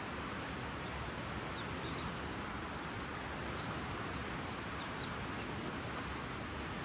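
Steady outdoor background hiss with a few faint, high bird chirps in two short clusters, one about two seconds in and another around four to five seconds.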